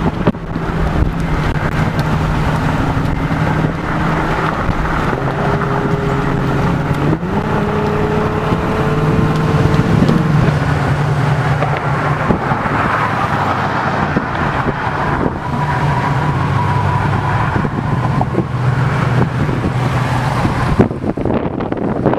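Car engine running while the vehicle drives, its pitch climbing and stepping up about seven seconds in, over steady road and wind noise.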